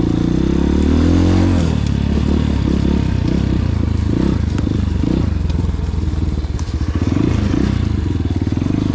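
A budget 250cc dirt bike engine revving up over the first second or so as the rider accelerates, then rising and falling with the throttle while riding over rough ground. Occasional clatter can be heard over the engine.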